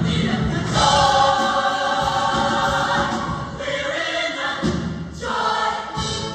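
Large show choir singing in full harmony, holding a long sustained chord and then a second chord near the end.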